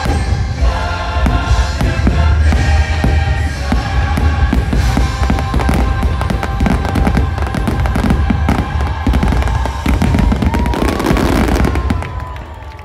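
Fireworks finale: rapid shell bursts, booms and crackling over the show's Christmas music soundtrack. The bursts and music stop near the end.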